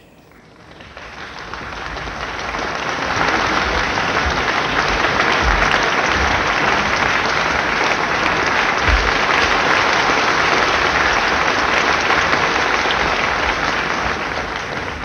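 Concert audience applauding in a hall, swelling up over the first few seconds, holding strong, then dying away near the end.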